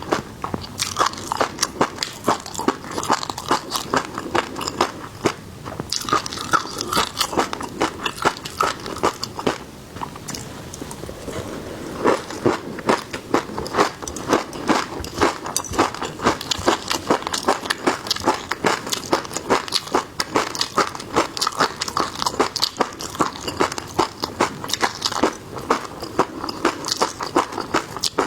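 Close-miked eating: seafood being bitten and chewed, with many crisp crunches and wet chewing clicks in quick succession and a short lull about ten seconds in.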